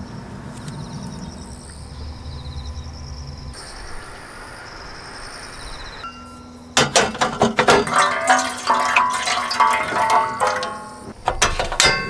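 Faint high chirping of insects over a low background, then from about seven seconds a loud run of bright clinks and short chime-like ringing tones.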